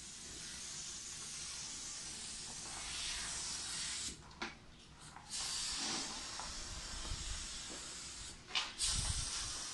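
A foam mattress cleaning machine hissing steadily as its hose wand works over the foam. It cuts out for about a second around four seconds in and again briefly near the end, with a few low thumps at the close.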